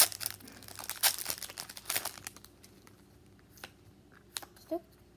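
Foil booster-pack wrapper and trading cards being handled: crinkling and rustling with a sharp crackle right at the start, fading out after about two and a half seconds, then a couple of soft, separate clicks.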